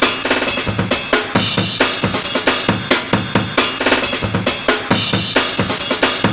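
Sampled drum break looping at about 135 BPM, its slices rearranged so the kicks and snares land in new spots. Each slice cuts the previous one off, and there is a quick stutter of rapid repeats about half a second in.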